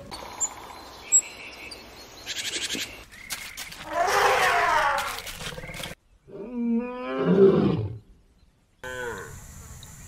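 Lion roaring: a loud, deep roar whose pitch falls, about six to eight seconds in, with a weaker falling call near the end. About four seconds in there is another loud animal call, also falling in pitch.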